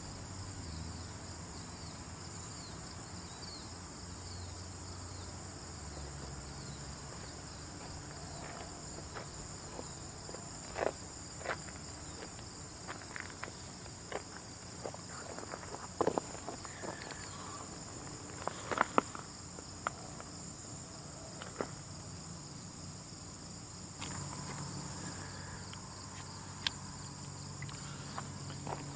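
Ant-colony sound effect: a steady high insect chirring with scattered small sharp clicks and crackles, thickest through the middle stretch.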